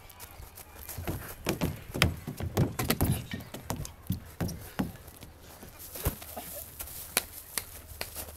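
Hurried, uneven footsteps crunching and scuffing on playground wood chips, thickest between about one and five seconds in, then thinning to scattered steps.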